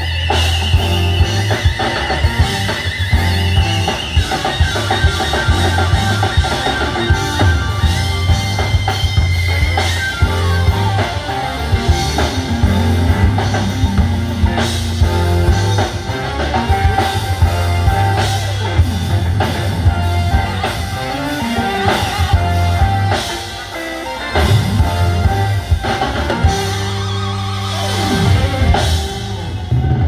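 Live band playing an instrumental groove on drum kit, electric bass, electric guitar and keyboards, with a steady bass line and drums under the keys and guitar. The bass drops back briefly about three quarters of the way through.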